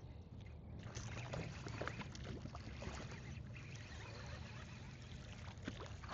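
Faint water splashing and lapping at a small boat, with scattered small clicks and knocks, as a hooked trout is brought in.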